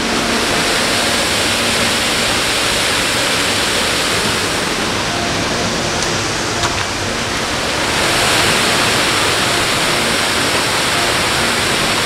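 Waterfall pouring over a stone-walled drop into a pool: a loud, steady rush of falling water.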